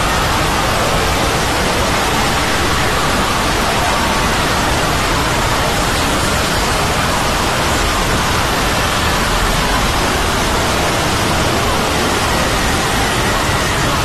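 Many video soundtracks layered on top of each other and sped up, blending into a loud, steady hiss-like noise with faint tones wavering underneath.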